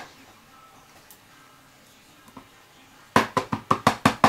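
Clear stamp block tapped repeatedly onto an ink pad to ink the stamp: a fast run of sharp plastic taps, several a second, starting about three seconds in.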